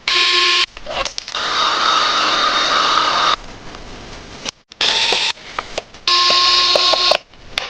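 Small handheld power tool motor running in short bursts, five runs that start and stop abruptly, each a steady whine with a hiss.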